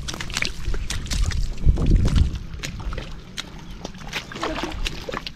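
Footsteps squelching and sucking in wet tidal mud, a run of short wet clicks and squishes, over a low rumble that swells about two seconds in.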